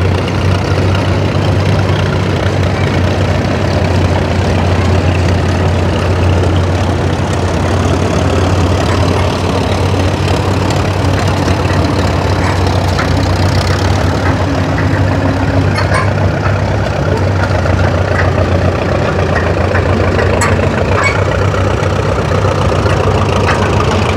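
Old farm tractor engines running steadily, a continuous engine drone with a strong low hum.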